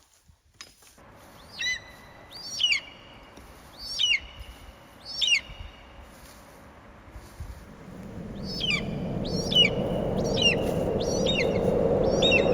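A bird calling repeatedly, each call a quick falling whistle, about nine calls in two groups. From about two-thirds of the way in, a rush of wind noise builds up underneath and grows louder.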